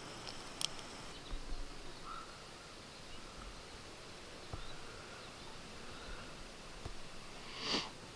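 Quiet outdoor ambience: a faint insect trill that stops about a second in, a couple of soft clicks, and a brief rustle near the end.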